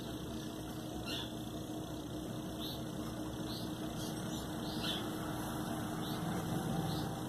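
A steady mechanical hum, with short high chirps about once a second over it.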